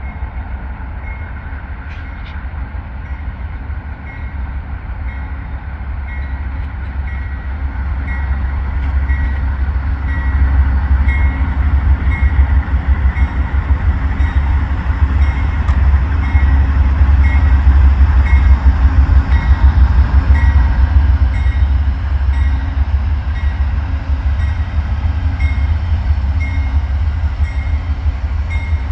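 Amtrak California Zephyr passenger train arriving at a station. The diesel locomotive's deep rumble grows louder, is loudest about two-thirds of the way through, then eases slightly as the train slows. Throughout, a short high note repeats a little more than once a second.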